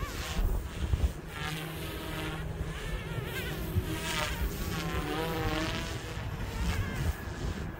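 Small electric RC helicopter, a Goosky S2-based build, flying hard manoeuvres: its motor and rotor whine rises and falls in pitch over and over. Wind rumbles on the microphone underneath.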